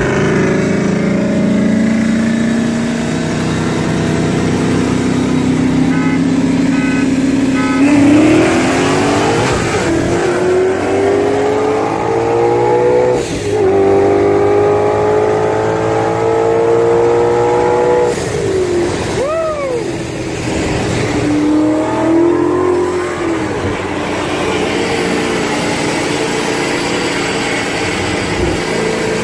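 Car engine heard from inside the cabin during a roll race: it runs at a steady pitch for several seconds, then accelerates hard, its pitch climbing through the gears with sudden drops at the shifts about thirteen and eighteen seconds in. A short rising-and-falling whine comes about twenty seconds in, and the engine climbs again near the end.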